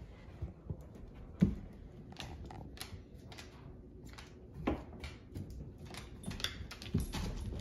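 A Great Dane and a puppy playing: scattered thumps, taps and scuffles of paws and bodies, the loudest a sharp thump about a second and a half in, with further knocks near the middle and end.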